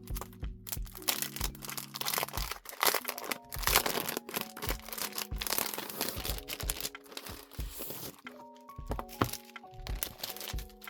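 Soft background music, over the crinkling and rustling of plastic and paper as album inserts and packaging are handled; the crinkling is densest in the middle.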